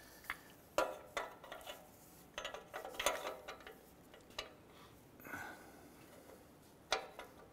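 Scattered light metal clicks and clinks as an oxygen sensor socket is handled and fitted over the O2 sensor, with a sharper click near the end.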